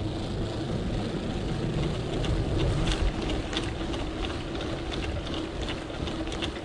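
Gravel bike tyres humming on the deck of a suspension bridge: a steady, droning tone with scattered light ticks.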